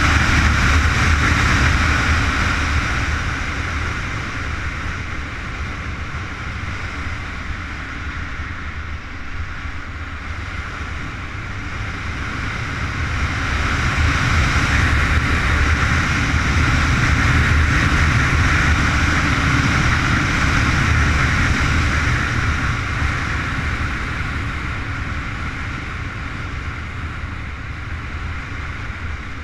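Honda CBR919RR Fireblade's inline-four engine running hard at track speed, mixed with heavy wind rush on the microphone. The sound rises through the middle and eases off near the end.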